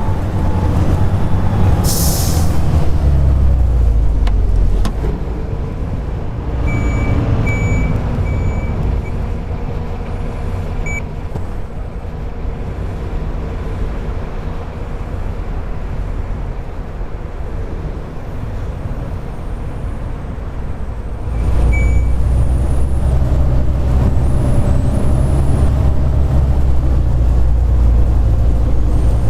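Volvo B7TL bus's diesel engine running, heard from on board. There is a short air-brake hiss about two seconds in and a few short high beeps a few seconds later. The engine quietens for a while, then grows louder again about two-thirds of the way through as the bus works harder.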